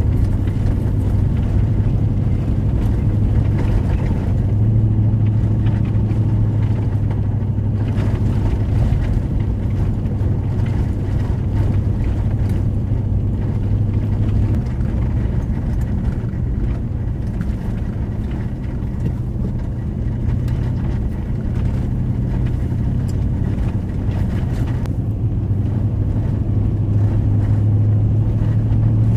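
Steady low engine drone and tyre rumble heard from inside a vehicle's cabin while driving on a highway.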